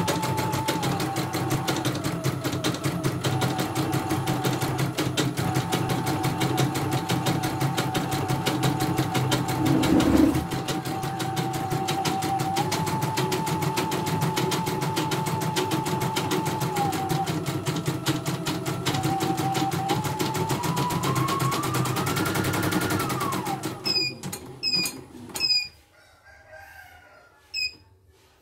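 CNY portable embroidery machine stitching: rapid needle strokes over a motor whine that shifts in pitch and rises just before the stitching stops, a few seconds from the end. Four short beeps follow.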